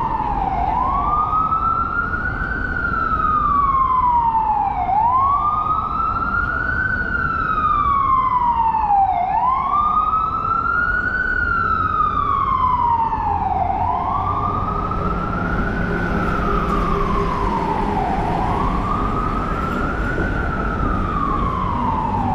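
Emergency vehicle siren on the wail setting, its pitch slowly rising and falling about every four seconds, over a steady rumble of city traffic.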